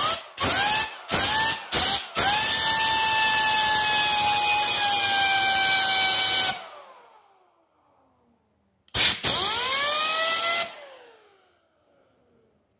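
Power drill spinning a 12 V brushless PC cooling fan by its hub. About four quick trigger blips, then a run of about four seconds with a steady whine, which falls away as the drill and fan spin down. Near the end comes a second, shorter run that also winds down with a falling whine.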